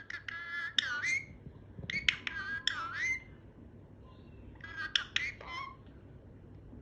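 Pet parrot calling close by: three short squawky phrases with sliding pitch, each a second or so long, about two seconds apart.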